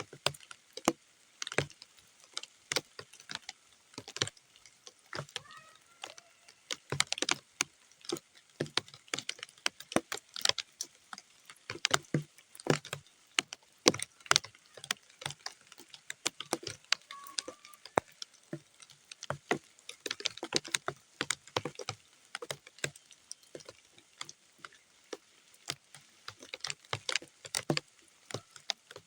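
Raindrops falling on muddy ground: separate, irregular drips and taps, several a second, rather than a steady rain hiss.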